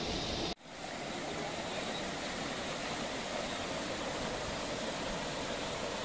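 Mole crabs deep-frying in hot coconut oil: a steady sizzle, broken by a brief dropout about half a second in.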